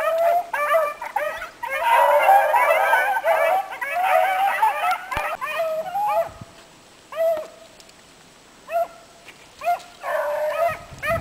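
A pack of bluetick coonhounds baying while running, rapid short barks that overlap into a dense chorus about two seconds in, thin out to scattered single barks, then swell again near the end.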